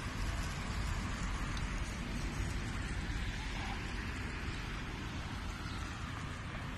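Steady rushing noise of wind on the microphone, with road traffic passing.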